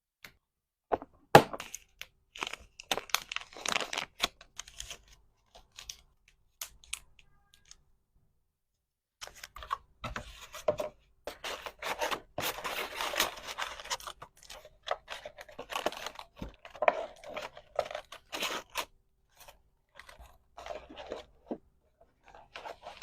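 Hand-packing sounds: packaging wrap crinkling and tearing, with sharp clicks and taps. There is a pause about eight seconds in, then a longer stretch of continuous rustling and crinkling with more clicks.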